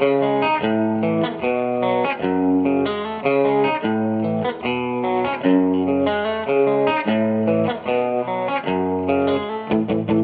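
Background music led by guitar, with plucked notes changing in a steady, regular rhythm.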